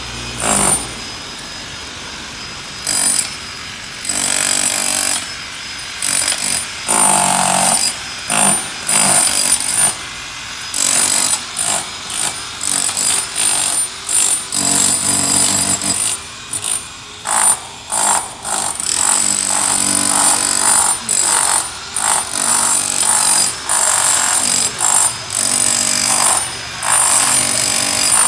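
Pneumatic chipping hammer breaking up the old stone of stoop steps, running in repeated short bursts with brief pauses between.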